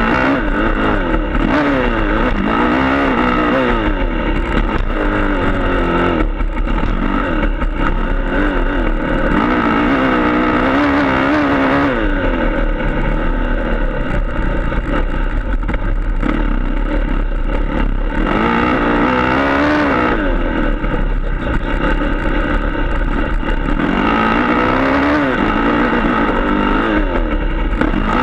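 Motocross dirt bike engine at close range, revving up and dropping back again and again as the rider accelerates out of corners and rolls off into the next, with steady wind rush on the microphone.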